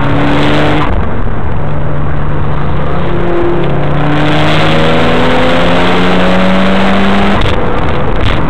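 Mitsubishi Lancer Evolution wagon's engine pulling hard on track, heard inside the car over a loud rush of wind and road noise. The revs climb steadily through one long gear, with an upshift about a second in and another near the end.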